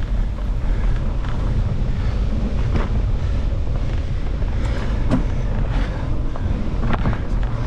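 Mountain bike rolling over a dirt trail at speed, with wind buffeting the microphone in a steady low rumble and a few short clicks and rattles from the bike and tyres.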